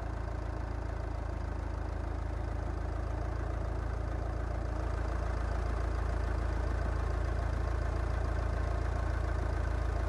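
A steady, low idling engine rumble that grows slightly louder.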